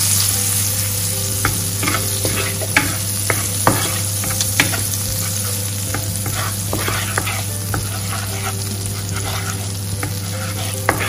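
Butter melting and sizzling in a hot non-stick pan: a steady hiss with scattered small pops and crackles, while a wooden spatula stirs the pieces around the pan. A steady low hum runs underneath.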